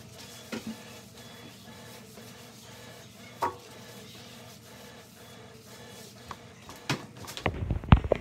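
Faint background music under a few sharp knocks of objects being handled and set down. A quick run of knocks and thuds comes near the end, the loudest about eight seconds in.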